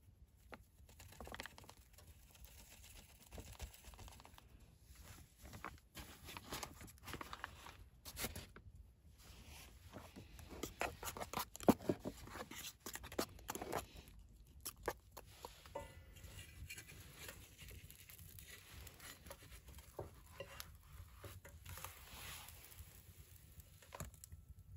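Spoon stirring pancake batter in a metal mess tin, a quick run of faint scrapes and clicks against the tin that is busiest about halfway through. A plastic flour bag rustles near the start.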